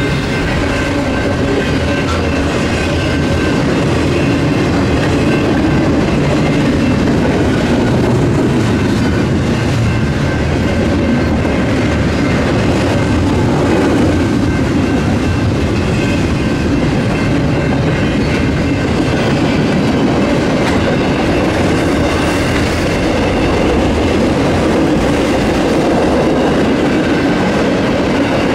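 Freight train cars rolling steadily past at close range: continuous rumble and clatter of wheels on the rails, with faint steady high tones above it.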